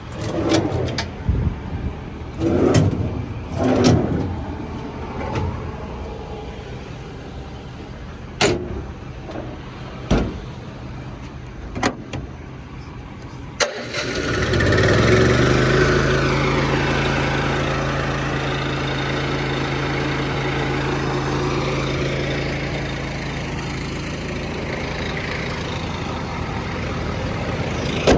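Several sharp knocks and clacks, then about halfway through the Ford F550's 6.7 Power Stroke V8 diesel starts with a sudden loud burst and settles into a steady idle.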